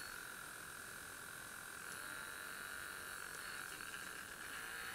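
LEGO boat motor, a small motor powered by one 1.5 V battery, running in the hand out of the water with a faint steady whine. It runs on without faltering: the old motor still works.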